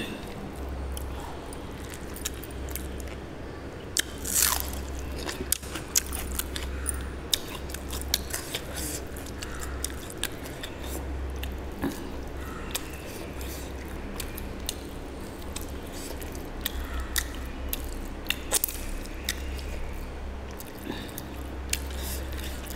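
Close-up chewing and biting of mutton curry and rice eaten by hand, with many short wet mouth clicks scattered throughout. A steady low hum runs underneath.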